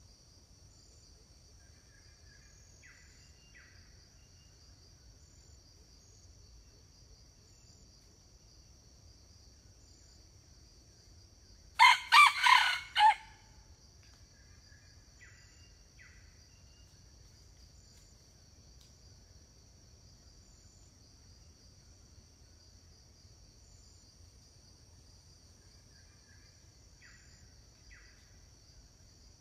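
Red junglefowl rooster crowing once, a loud crow of several notes about twelve seconds in, with fainter, more distant crows answering a few times.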